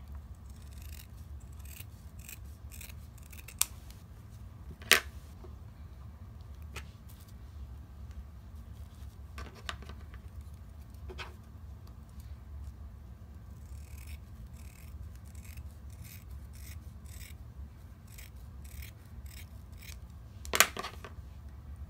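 Scissors cutting through faux fur fabric in a long run of short snips, with a few louder sharp clicks, the loudest about five seconds in and near the end.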